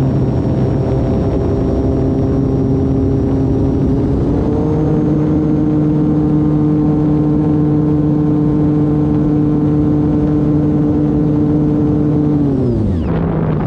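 Electric motor and propeller of an E-flite Turbo Timber Evolution RC plane running steadily in flight. The whine steps up slightly in pitch about four and a half seconds in as throttle is added, then falls away quickly near the end as the throttle is cut back.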